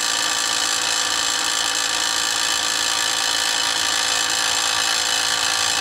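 Electric air suspension compressor of a 1998 Lincoln Mark VIII, a new Dorman replacement assembly, running steadily with a motor whine and hum. It is powered through a jumper in place of its relay, and its running shows that the compressor is good and the relay is faulty.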